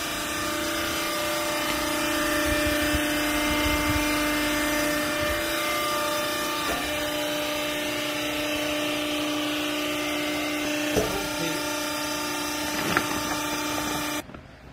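Clothing baler's hydraulic power unit running: a steady machine whine from the motor and pump that cuts off suddenly shortly before the end, with two short clicks late on.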